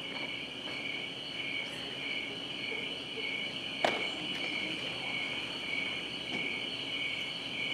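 High, steady cricket-like chirring that pulses about twice a second, with one sharp knock about four seconds in.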